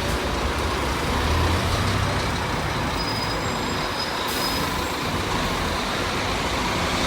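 Bus engine running steadily close by, with a faint high whistle for about a second around the middle.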